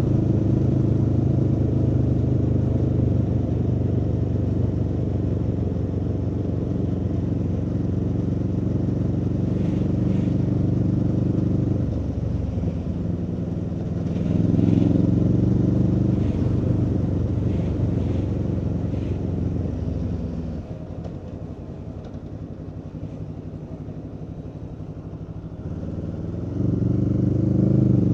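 Aprilia Tuono V4's V4 engine on the move, holding steady revs, easing off briefly about twelve seconds in and pulling again. It then drops to a quieter, lower run for several seconds before accelerating with rising pitch near the end.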